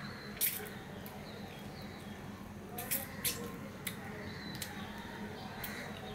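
Wet mouth sounds of someone sucking and smacking on a piece of food at the end of a meal: several sharp, short smacks, one about half a second in and a few more around three to four seconds in.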